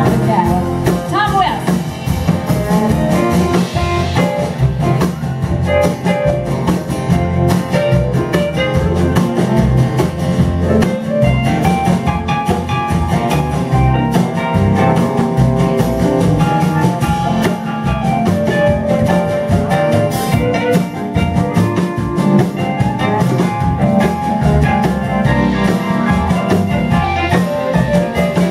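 Live blues-rock band playing an instrumental passage: acoustic and electric guitars over drums, with little or no singing.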